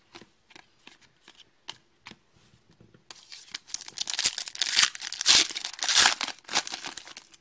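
A few light clicks from trading cards being handled. Then, from about three seconds in, the foil wrapper of a hockey card pack is torn open with loud crinkling and tearing.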